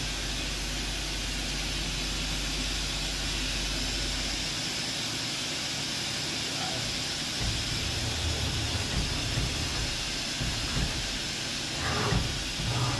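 Hurco VMX30 CNC vertical machining center running, its spindle turning at 1,000 RPM with a steady hiss while the Z axis is run. A low hum stops about four and a half seconds in, and uneven low rumbling comes in a few seconds later.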